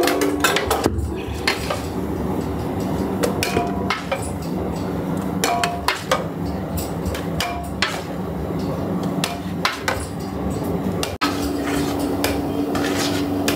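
Metal scoop scraping and knocking against a large aluminium kadai as thick cooked food is scooped out into another pot: irregular metallic clanks and clinks over a steady low hum.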